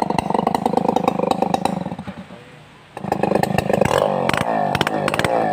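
Stihl 070 two-stroke chainsaw running with wavering engine pitch; its sound falls away about two seconds in and comes back abruptly about a second later.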